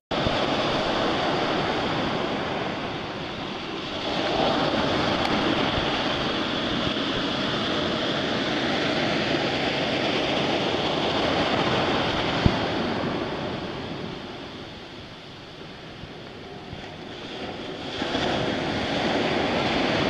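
Ocean surf breaking and washing up the beach: a steady rush that eases for a few seconds about three-quarters of the way through, then builds again.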